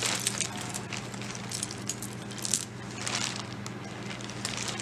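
Small metal jewelry clinking and jingling as it is handled, a scatter of short clicks that come in a few clusters, while a metal bangle cuff is picked up and turned over. A faint steady low hum runs underneath.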